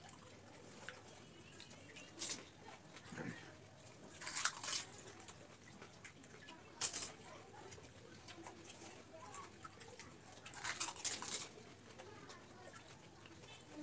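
Pani puri being eaten fast: crisp fried puri shells crunched and tamarind water slurped, in a handful of short crackly bursts a few seconds apart.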